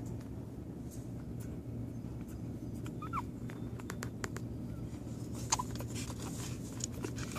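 Newborn American pit bull terrier puppies squeaking while they nurse: two short, thin squeaks that slide in pitch, one about three seconds in and one a couple of seconds later, with faint clicks among them over a steady low hum.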